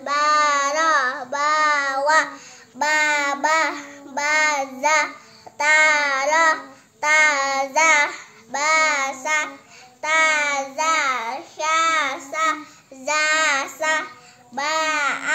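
A child reciting Arabic syllables from an Iqro primer in a sing-song Quranic chant. The reading comes in short phrases of about a second each, with brief pauses between them.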